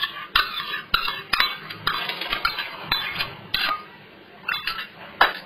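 Metal spoon clinking and scraping against a stainless steel bowl as curd is spooned onto raw chicken pieces: a run of irregular light knocks, with the sharpest one near the end.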